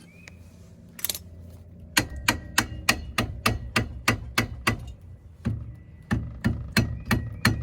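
Ratchet wrench clicking in quick repeated strokes, about three to four sharp metal clicks a second, starting about two seconds in.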